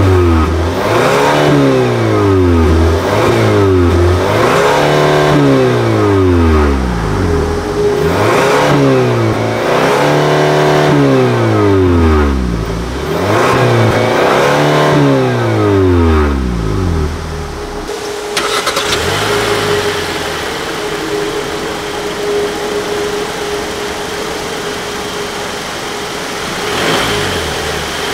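Car engine revved up and down over and over, its pitch rising and falling every second or two. About two-thirds of the way through it settles to a steady idle, and it is blipped once more near the end.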